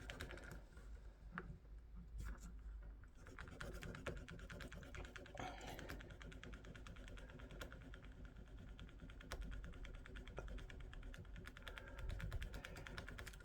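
Small hand file rasping against the raised plastic emblem on an action figure's chest to flatten it. The sound is a faint, rapid scratching that goes on with small pauses.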